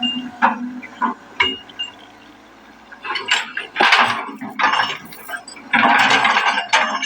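Excavator working in wet peat: irregular metal clanks and knocks with splashing, sloshing wet soil and water over a steady low engine hum. The sound is busiest in the second half.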